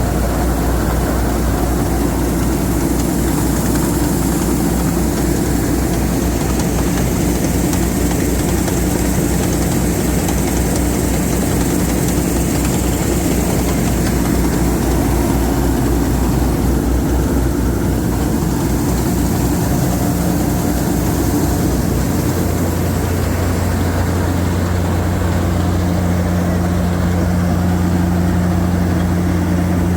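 Super Standard S50 mini combine harvester's engine running steadily, its note changing a little about three-quarters of the way through.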